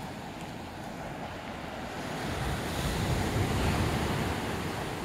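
Ocean surf with wind buffeting the microphone; a wave builds and breaks, loudest a little past the middle, then eases.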